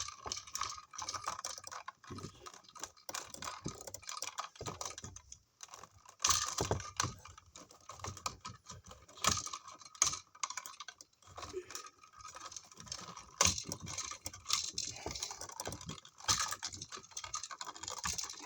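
Irregular clicks, scrapes and rustles of electrical cable being worked by hand into a wall outlet box through a hole in its back.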